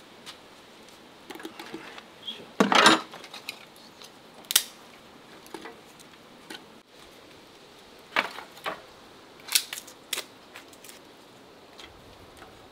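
Dry twigs and kindling fed into a samovar's metal chimney and snapped by hand: scattered sharp clicks and clatters against metal, the loudest cluster about three seconds in.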